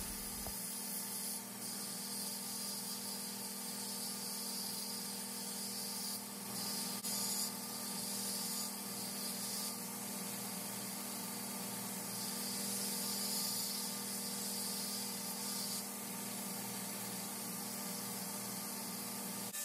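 Belt grinder running with a steady hiss and a low motor hum, with slight swells now and then.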